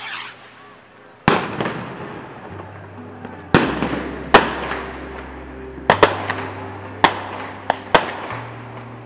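A string of about eight loud, sharp explosive bangs, each trailing off in a long echo, the first about a second in and two close pairs near the middle and end.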